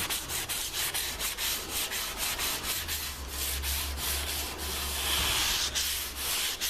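Hand sanding of painted car bodywork with 240-grit paper, in quick, even back-and-forth strokes. The paper is rubbing down raised primer pimples under the paint.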